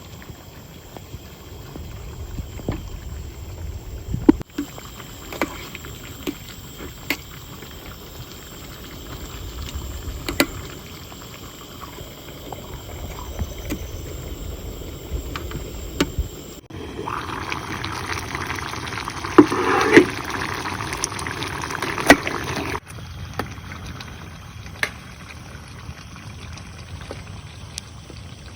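Rain falling, with scattered sharp drop impacts and a low rumble. The sound changes abruptly a few times, with a louder, hissier downpour for several seconds past the middle.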